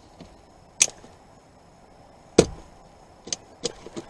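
Sharp plastic-and-metal clicks and knocks as the driver's airbag module is pushed into a new leather steering wheel on a 2021 Ford F-150, trying to snap its retaining clips home. There is one knock, then a louder one in the middle, then a quick run of smaller clicks near the end.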